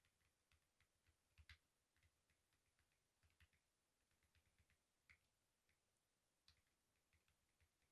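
Very faint typing on a computer keyboard: irregular key clicks, a few a second, the loudest pair about a second and a half in.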